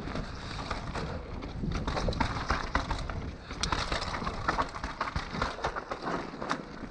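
Mountain bike riding down a dirt trail: tyres grinding over the ground and the bike rattling, with frequent sharp knocks as it hits bumps.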